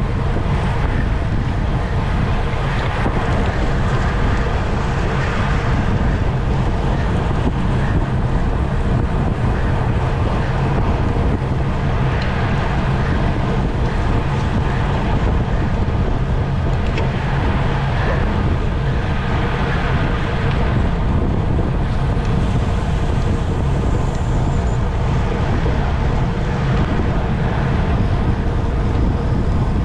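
Steady, loud wind noise on the microphone of a camera riding along at racing speed in a bicycle criterium.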